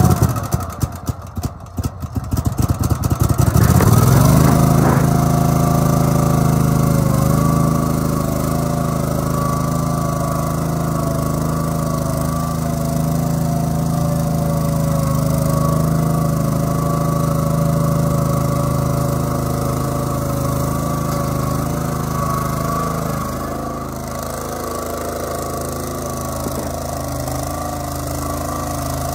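Gravely 60-inch hydrostatic mower's 20 hp Kohler engine cranking on the starter, catching about three seconds in and revving up, then running steadily as the mower is driven. The engine note drops slightly near the end.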